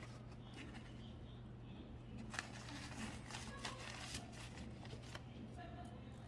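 Faint small clicks and scrapes of hands handling a soft-plastic lure and glue at close range, most of them in a cluster a couple of seconds in, over a steady low hum.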